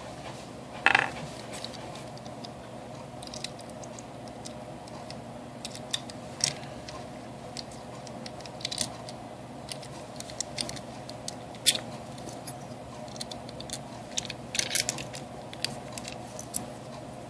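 Scattered light clicks and taps from handling a Master Lock M930 padlock and its parts during disassembly, the loudest about a second in and again near the middle, over a steady low hum.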